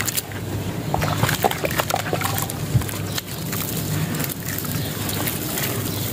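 Hands squeezing and crumbling wet sand chunks in a basin of muddy water: sloshing and splashing with many small gritty crackles as the crumbled sand drops into the water, and one sharper knock about halfway through.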